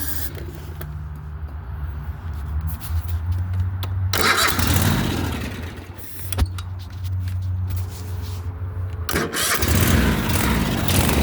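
Kohler Courage 25 V-twin engine on a riding mower being cranked on the starter, then firing and running in two louder spells, about four seconds in and again from about nine seconds on. The engine is starved of fuel, which the owner suspects comes from a failed vacuum fuel pump.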